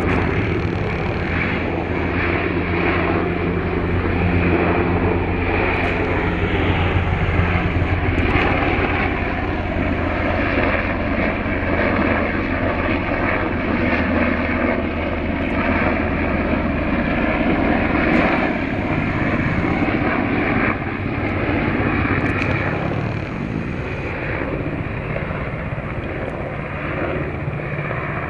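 Four-engine turboprop C-130 Hercules droning steadily as it flies over on low approach, a loud continuous propeller and engine hum.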